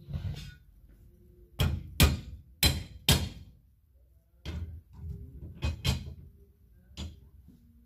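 A series of about ten irregularly spaced knocks and clacks, the loudest a cluster around two to three seconds in.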